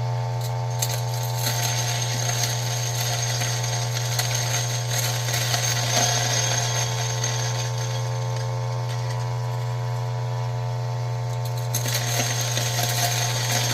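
Ceado E6P espresso grinder motor running steadily, with crackling as a few coffee beans are crushed in the burrs from about a second in until near the end.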